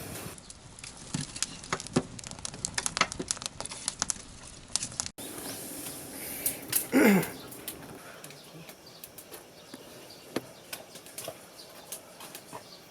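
Wood fire crackling, with many irregular sharp pops and clicks. A short falling vocal sound comes about seven seconds in.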